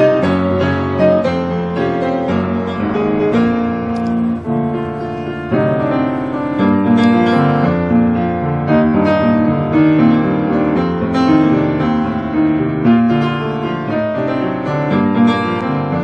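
Background piano music, steady notes with no speech.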